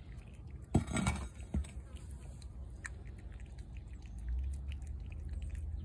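A cat chewing shredded chicken: faint, irregular small clicks and wet mouth sounds. There are a few louder knocks about a second in, and a low rumble sets in past the middle.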